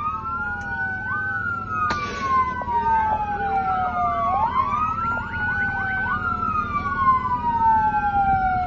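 Several police car sirens wailing at once in the wail pattern, each rising and falling slowly, their sweeps overlapping out of step, over a low steady rumble of vehicles.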